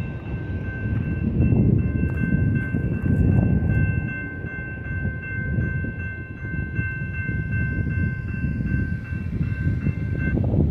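Railroad crossing warning bell ringing in a fast, even rhythm while the crossing gates rise after the train has cleared, cutting off just before the end as the gates come up. A low rumble runs underneath.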